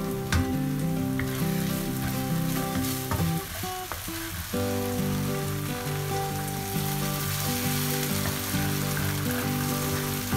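Sauce of ketchup and chili sauce sizzling over fried shallots and chili in a nonstick wok, with a wooden spatula scraping and stirring. The sizzle grows louder about six seconds in, when water is poured in to simmer the sauce down, under steady background music.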